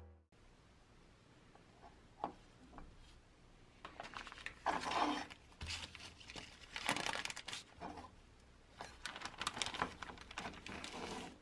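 Clear plastic zip bag crinkling and rustling in several bursts as gloved hands open and handle it, with a couple of light clicks about two seconds in.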